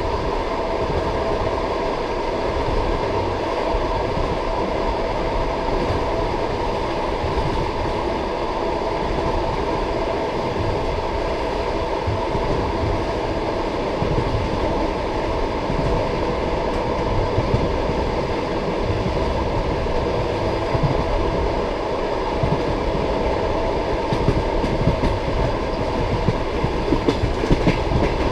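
Passenger railway carriage rolling along the track: a steady deep rumble of the wheels on the rails, with the clickety-clack of the wheels over rail joints growing sharper and more frequent near the end.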